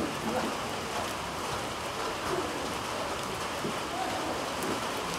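Heavy rain falling steadily, an even hiss of rain on the ground and around the microphone.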